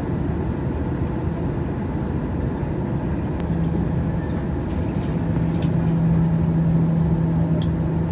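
Steady low rumble of airflow and engines inside the cabin of an Airbus A319. A steady low hum joins about three and a half seconds in and grows louder about five seconds in.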